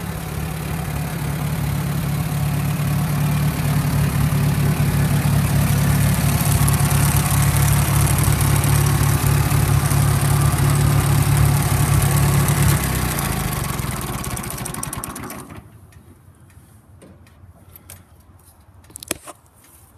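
1955 Volvo T24 tractor engine running steadily at a low speed, picking up slightly in the first few seconds, then slowing and dying away about 15 seconds in as it is shut off. A few faint clicks follow, with one sharper click near the end.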